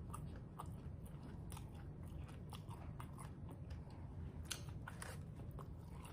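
Close-up chewing and biting of fried chicken wings, with many small scattered crunches and mouth clicks.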